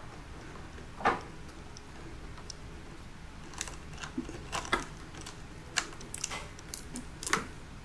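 Scattered small clicks and ticks of plastic wire nuts and wire ends being handled and twisted together in a dishwasher's metal junction box, with a louder click about a second in.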